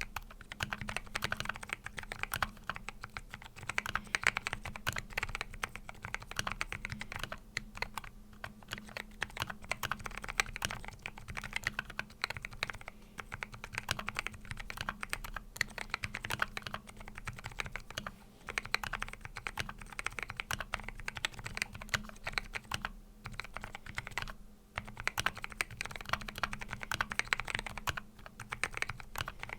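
Continuous fast typing on a custom 60% mechanical keyboard with lubed Zealios 62g tactile switches and MDA Big Bone keycaps, dense keystroke clacks with a few brief pauses.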